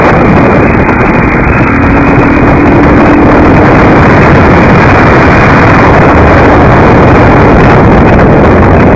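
Loud, steady rush of wind and road noise on a microphone moving at speed, with a motorcycle engine running underneath.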